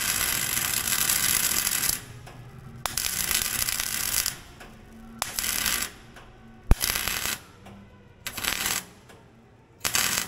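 Electric arc welding: a crackling, hissing arc struck in about six separate bursts, the first about two seconds long and the rest shorter, with a sharp click a little past the middle.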